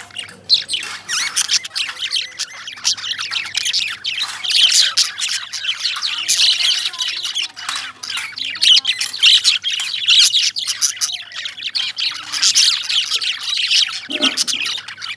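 Caged lovebirds chirping and squawking without pause, many high-pitched calls overlapping in a dense chatter.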